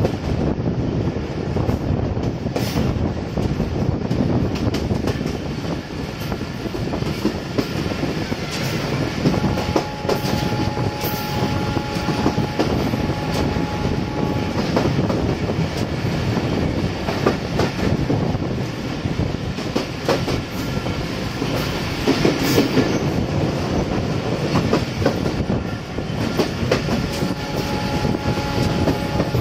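Passenger express train running at speed, heard from a coach doorway: continuous wheel-and-rail running noise with irregular clacks over the rail joints. A thin steady whine comes in for a few seconds around the middle and again near the end.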